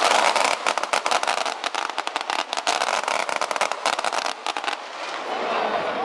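Feu de joie: SAR21 rifles fired in a rapid, rippling run of shots down the ranks, a dense crackle of reports that thins out and stops about five seconds in.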